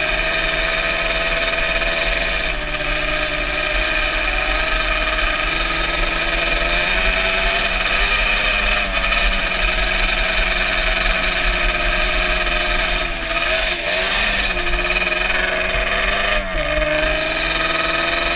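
Yamaha Banshee ATV's two-stroke twin engine running under throttle at a steady cruising pitch, with the pitch dropping briefly and picking up again a few times.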